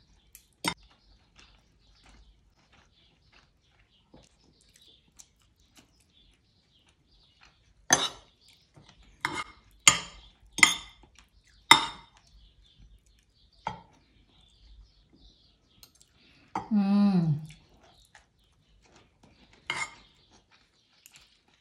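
Cutlery clinking against a plate while eating, about eight sharp separate clinks with quiet stretches between them. A short wavering hum of a voice comes about three-quarters of the way through.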